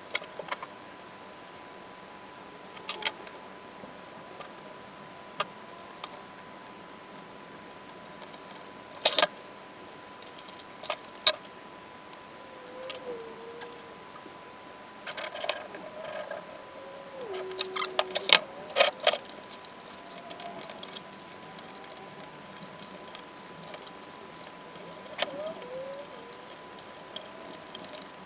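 Scattered clicks, taps and light rattles of small hardware and hand tools being handled at a workbench, with a few short squeaky slides, over a faint steady high tone.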